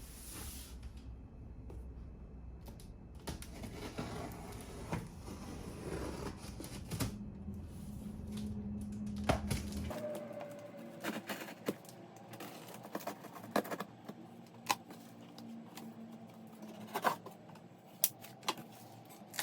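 Sped-up handling sounds from unboxing and assembling a Ryobi electric pressure washer: rustling with many scattered sharp clicks and taps of parts being handled and fitted.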